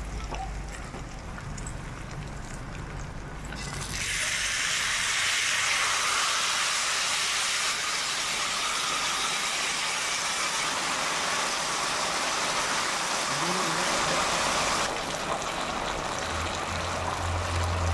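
Gravy poured onto a hot cast-iron sizzling plate of fried pork chops, sizzling loudly from about four seconds in and easing to a quieter sizzle near the end.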